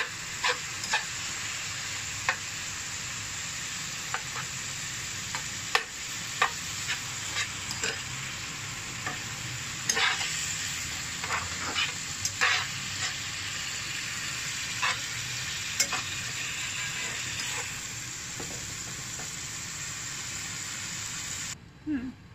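Minced chicken sizzling in hot oil in a frying pan, with frequent short scrapes and taps of a spatula against the pan as the mince is stirred and broken into small pieces. The sizzle cuts off suddenly near the end.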